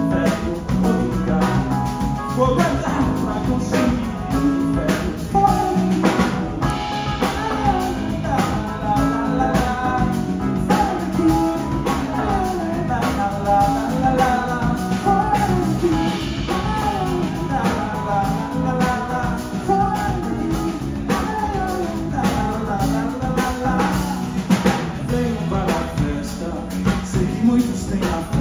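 Live band playing amplified: a man sings over electric guitar and a drum kit keeping a steady beat.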